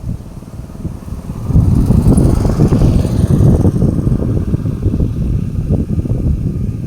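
Wind buffeting the microphone in gusts, a low rumble that swells about a second and a half in and stays strong.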